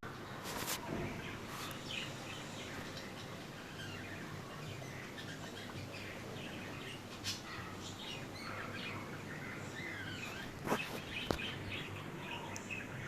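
Birds chirping: many short chirps throughout, with a few sharp clicks, two of them close together near the end.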